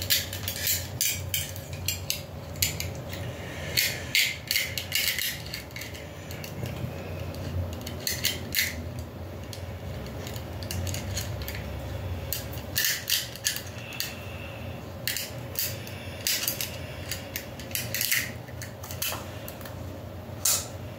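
Springfield 10mm pistol magazine being handled while its extension base plate and spring are fitted: irregular small clicks, clinks and scrapes of the parts, over a low steady hum.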